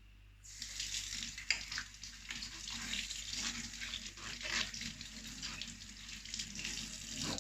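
Water running from a kitchen tap into a sink. It comes on about half a second in and cuts off at the end, with light knocks and clicks of things being handled under the stream.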